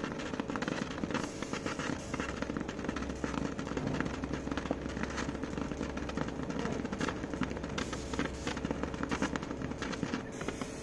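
100 W CO2 laser burning into sheet material: a dense, irregular crackling from the beam spot, over a steady machine hum.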